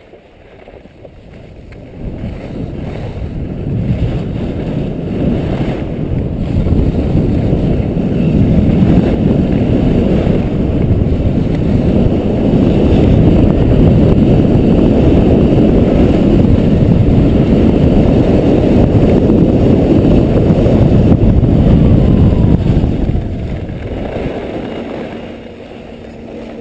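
Wind buffeting the camera's microphone during a fast ski descent, a loud low rumble mixed with the hiss of skis on the snow. It builds over the first few seconds and dies down near the end as the skier slows.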